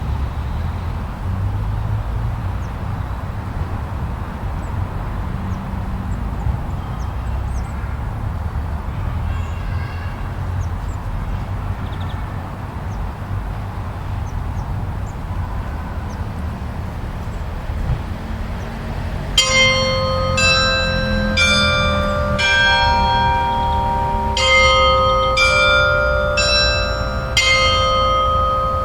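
Steady low rumble of snowstorm wind. About two-thirds of the way in, a run of bell-like chime tones begins, struck about once a second, each ringing on over the wind.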